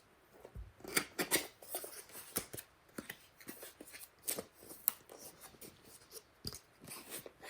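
Cardboard product packaging being opened and handled: irregular sharp clicks, crinkles and scraping rustles.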